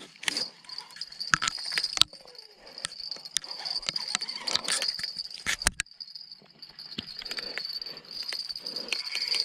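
Insects chirring steadily on one high note, with irregular sharp clicks, knocks and rustles from a baitcasting rod and reel being handled; the loudest knocks come around two seconds in and again just before six seconds.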